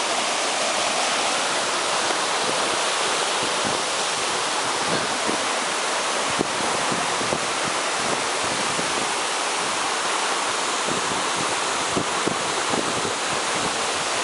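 Waterfall rushing steadily, close at hand: an even hiss of falling water, with a few soft low thumps through it.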